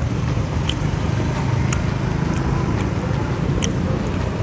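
Steady low rumble of road traffic, with three or four short sharp clicks.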